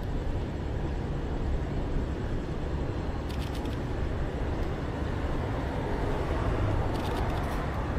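Steady low rumble of city traffic, with faint short runs of clicking about three seconds in and again about seven seconds in.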